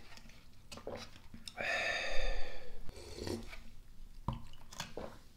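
Slurping hot yukgaejang broth from a cup-noodle bowl, the loudest slurp lasting about a second and a half from about a second and a half in, with small mouth clicks around it. A short knock comes a little after four seconds.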